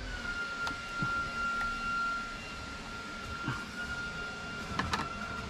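Faint small clicks and taps of a screwdriver working a screw terminal on a metal-cased 240 V to 12 V power supply, a short cluster of them near the end, over background hiss and a steady high-pitched whine.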